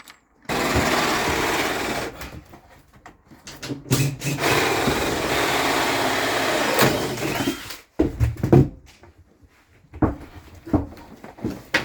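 A power drill runs in two spells: a short one of about a second, then a steadier one of about four seconds. A few short knocks and clicks of handling follow near the end.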